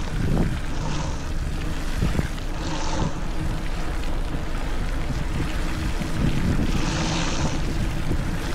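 Steady wind rumble on the camera's microphone while riding a Specialized Rockhopper mountain bike along a wet trail, with rolling tyre noise and a few brief hissing surges, the longest about seven seconds in.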